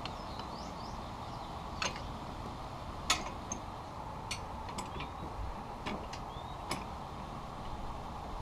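Scattered light metal clicks and knocks from hand-working a compact manual metal bender on 1/8-inch steel tabs, about six separate clicks over a steady background hiss.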